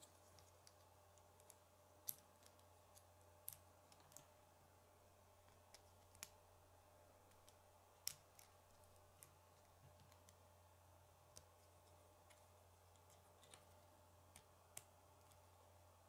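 Plastic K'nex rods and connectors clicking as they are snapped together by hand: scattered, irregular sharp clicks, the loudest about two and eight seconds in, over a faint steady low hum.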